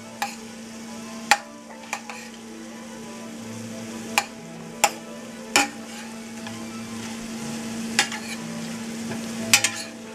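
Chicken thigh pieces sizzling in oil in a stainless steel skillet as a metal spoon turns them over, with sharp clicks and scrapes of the spoon against the pan every second or so.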